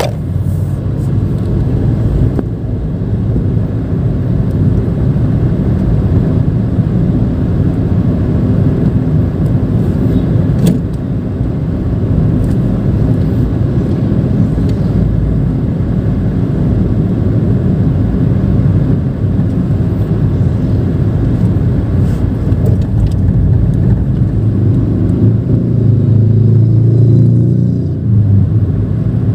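A Nissan March 1.2 hatchback driving in traffic: a steady low engine and road rumble that swells louder for a few seconds near the end.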